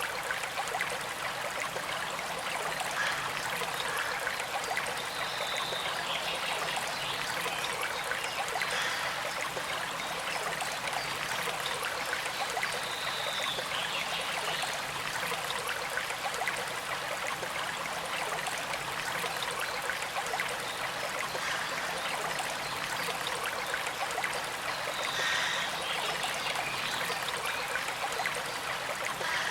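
Gentle creek trickling and flowing steadily, a continuous even rush of moving water.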